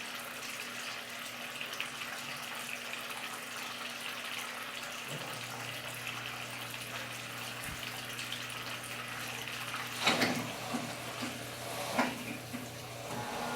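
Washing machine draining its wash water before the spin cycle: a steady rush of running water. A low hum comes in about five seconds in, and there are two sharp knocks near the end.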